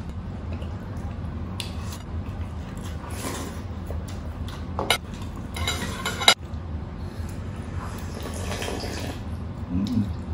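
Close-up eating sounds: broth being spooned and slurped and food chewed, in several short bursts, with a sharp clink of a spoon on a bowl about six seconds in, over a steady low hum.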